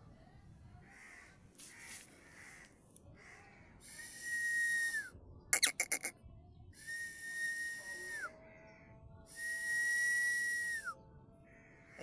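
Indian ringneck parrot giving three long whistles, each held on one steady note and sliding down at the end. Between the first and second whistle comes a quick burst of five or six harsh squawks.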